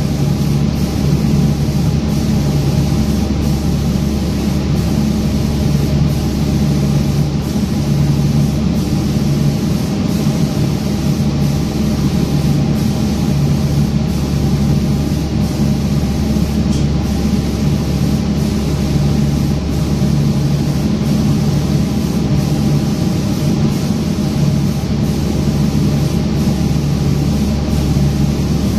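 Automatic lacquer spraying machine running: a loud, steady mechanical hum of the spray booth's motors and air, with a low tone that swells and fades regularly as the gantry spray gun travels back and forth.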